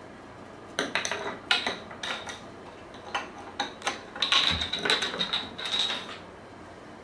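A cat at play knocks a small hard toy about on a wooden plank floor, making a run of light clicks and clattering taps. A high ringing joins the taps from about four seconds in.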